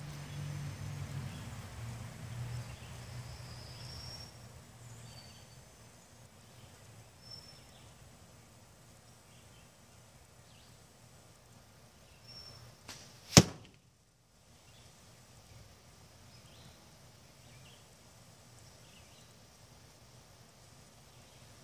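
Carbon arrow striking a tape-wrapped archery target block with one sharp, loud smack about thirteen seconds in.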